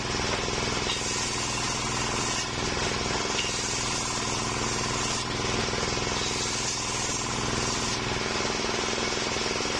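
Homemade bench circular saw running steadily while ripping waru wood boards into strips, the blade's cutting hiss shifting a few times as pieces are fed through.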